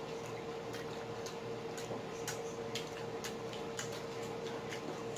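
Close-up chewing of crispy fried chicken tenders: irregular sharp crunching clicks, a few each second, over a steady faint hum.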